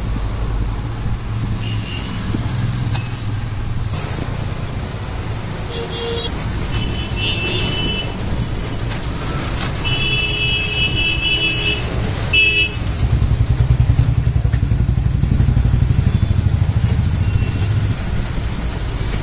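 A motorcycle engine running, with vehicle horns honking several times in the middle. About thirteen seconds in, the engine gets louder with an even pulsing beat.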